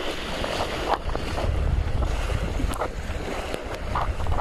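Wind buffeting the microphone with a heavy low rumble, over water rushing and splashing against a small sailing catamaran's hull and trampoline deck as it moves along.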